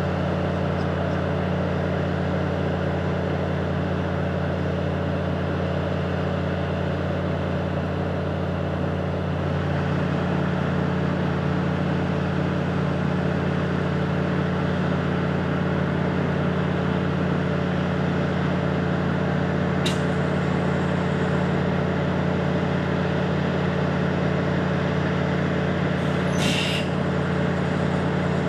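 Diesel multiple-unit train engine running steadily at idle, a constant low hum that steps up slightly about ten seconds in. There is a brief high hiss about two-thirds of the way through and another near the end.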